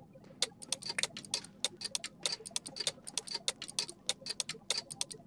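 Rapid, irregular sharp clicks, about five a second with uneven spacing, over a low steady room noise.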